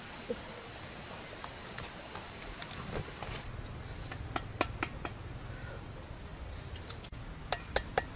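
Loud, steady, high-pitched insect buzzing that cuts off suddenly about three and a half seconds in. A few sharp clicks and knocks follow, in two small clusters.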